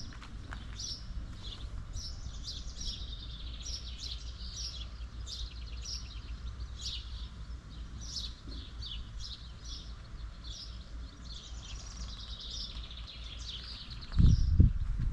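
Small birds chirping and twittering, many short quick calls one after another, over a low steady rumble. Near the end come a few loud low thumps.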